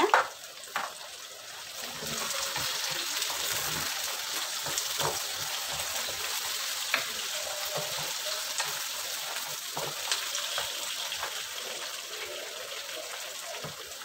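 Onions, tomatoes and green chillies sizzling in ghee and oil in a nonstick wok, the sizzle swelling about two seconds in, with a spatula stirring and now and then tapping the pan.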